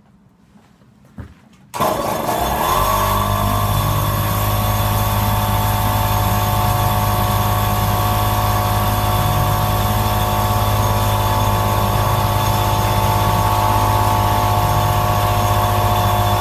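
Air compressor switching on with a click and starting up about two seconds in, briefly rising in pitch as it gets up to speed. It then runs steadily while inflating a freshly plugged tire, and cuts off suddenly at the end.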